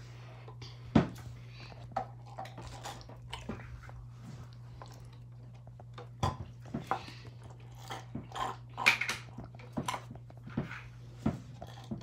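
Mouth noises of sipping a drink through a straw from a bottle, with scattered sharp clicks and knocks from handling the straws and the cardboard, over a steady low hum.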